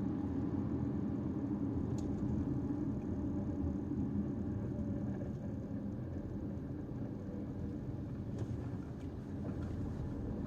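Caoa Chery Tiggo 5x on the move: a steady rumble of engine and road noise. A faint click comes about two seconds in, and a few light ticks come near the end.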